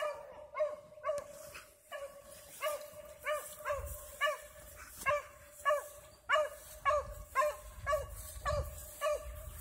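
A dog barking over and over in short, high barks, about three a second, at an even pace.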